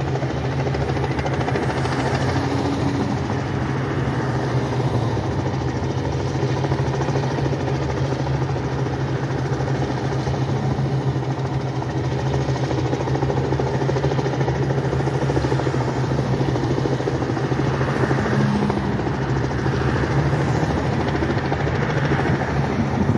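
Light two-bladed helicopter flying low overhead, its rotor and engine giving a steady drone.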